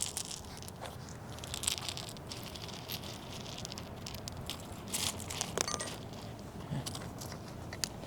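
Black lava rock being spread around plants by hand: irregular crunches and crackles of loose stones, some louder clusters about five seconds in.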